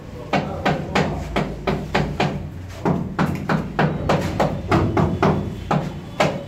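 Rubber mallet tapping a ceramic wall tile in quick, repeated knocks, about three to four a second, bedding the tile into a layer of tile adhesive.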